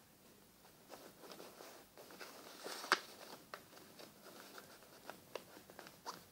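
A sheet of paper being creased and folded by hand: soft rustling and crinkling with small crisp ticks, the loudest rustle about three seconds in.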